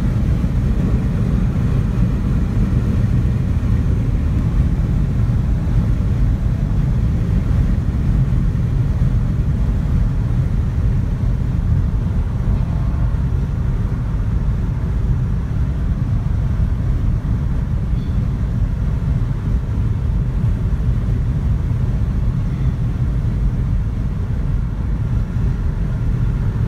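Steady low rumble of a car driving along a highway, heard from inside the cabin: tyre and engine noise.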